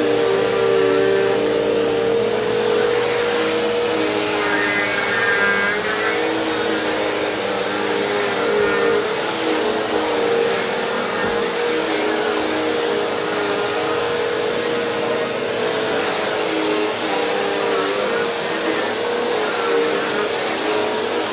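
Vacuum cleaner running steadily while being pushed over the floor, its motor whine wavering slightly in pitch.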